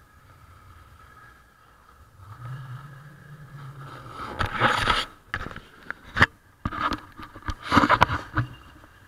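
Snowboard edge scraping over groomed snow in two loud rushes, about halfway through and again near the end, with several sharp knocks of the handheld camera in between.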